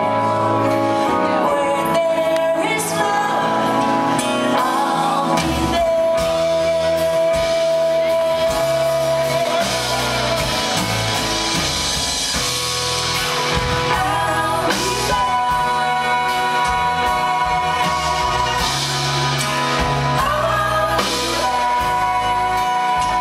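Live pop band with drums, congas and guitar playing while a female lead singer sings, holding long notes.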